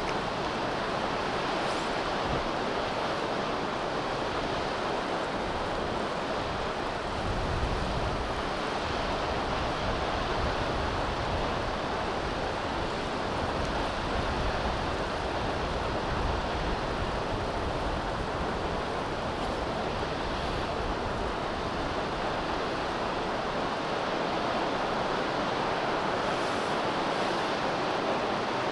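Steady roar of a large waterfall, the Akiu Great Falls, with uneven low rumbles of wind gusting on the microphone in a snowstorm.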